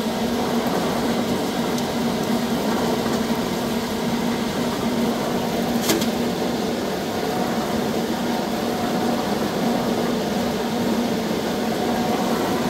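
Blower fan of an olive deleafing and cleaning machine running steadily: rushing air over a constant low hum. A single sharp click comes about six seconds in.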